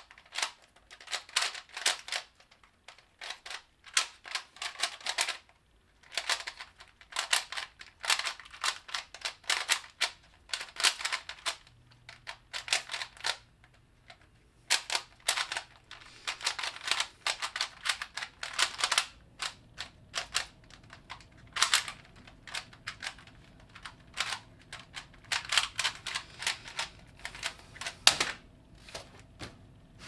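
3x3 Rubik's Cube turned one-handed at speed: bursts of rapid plastic clicking from the layer turns, broken by short pauses. About 28 seconds in, a single sharp knock marks the end of the solve, as the cube is set down and the timer is stopped.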